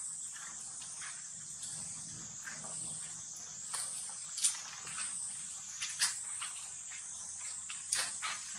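Steady high-pitched drone of insects, with a few sharp clicks scattered through it as a baby pig-tailed macaque's teeth work on the rim of a plastic basket.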